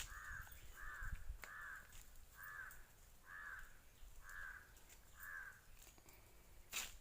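Crow cawing over and over, about one caw a second, seven caws that stop about five and a half seconds in. A single sharp click near the end.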